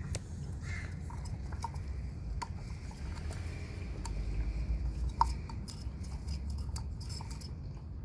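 Hands fitting rubber O-rings onto an oil filter housing: scattered small clicks and light handling noise over a low steady rumble.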